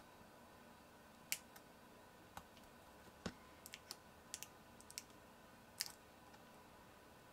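Faint, scattered small clicks and taps of hands and a tool handling small parts inside an opened MacBook Pro, about a dozen over several seconds, one of them a duller knock near the middle.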